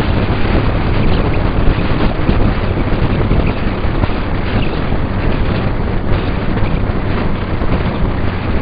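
Wind rushing hard over the microphone of a camera on a moving motorcycle, over the steady drone of the bike's engine at cruising speed, likely a Suzuki Bandit 1200's inline-four.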